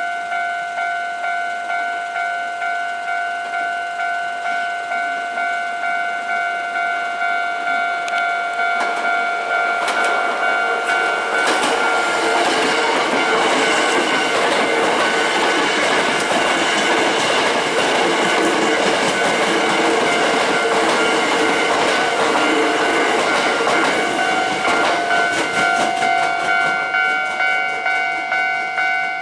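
Japanese level-crossing warning bell ringing, a steady repeating ding throughout. A Hankyu Senri Line electric train runs through the crossing in the middle, its wheels clattering over the rails, loudest from about ten seconds in until a few seconds before the end.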